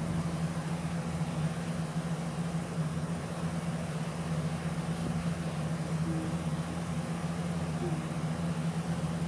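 Steady low mechanical hum with a constant hiss underneath.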